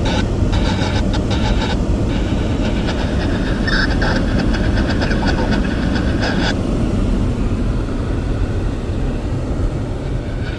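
Stopped diesel freight locomotive idling with a steady deep rumble, with a higher rattling hiss over it for the first six or so seconds that then falls away.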